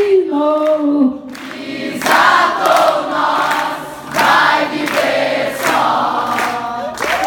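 Many voices singing the last held note of a refrain together, giving way about a second in to a concert audience cheering and shouting.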